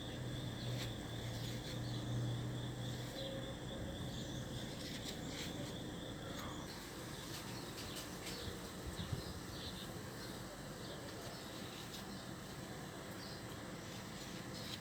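Outdoor background of birds chirping and insects, with a low steady hum and a high thin tone that both stop about halfway through. A few light clicks, one sharper about nine seconds in.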